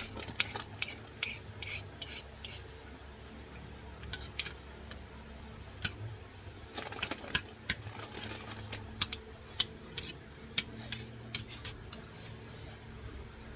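A spoon stirring sauce in a bowl, clinking and scraping against the bowl in irregular clusters of short clicks.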